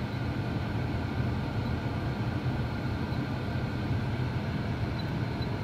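Steady low hum with a faint hiss and no distinct events: background noise in a car cabin with the ignition on and the engine not yet started.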